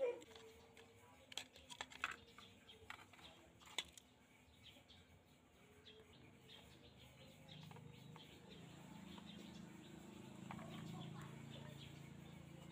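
Faint, scattered clicks and taps of a screwdriver and circuit board against the plastic fuselage of an F919 radio-control toy plane as the board is pried loose, the sharpest right at the start. Later comes a low rustle of gloved hands handling the parts inside the plastic shell.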